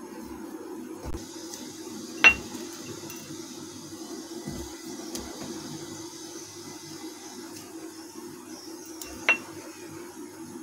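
Two sharp clinks on a small glass bowl of black peppercorns, about seven seconds apart, each with a brief ring, as the peppercorns are picked from it. A few soft low thumps and a steady low hum lie beneath.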